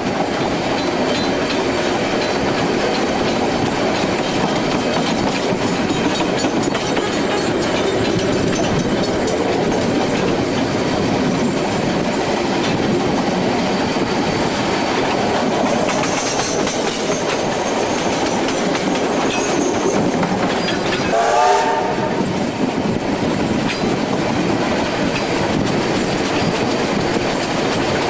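Steam-hauled vintage train running steadily, its wheels clattering over the rail joints in a continuous rumble, with a short pitched call breaking through about three quarters of the way in.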